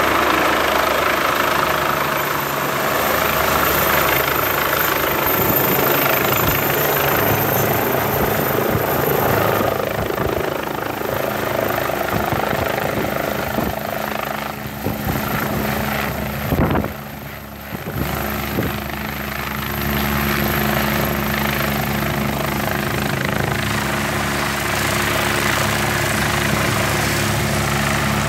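Medical helicopter's rotor and turbine engine running steadily as it descends and touches down on a helipad. The sound dips briefly, with a few thumps, about two-thirds of the way through.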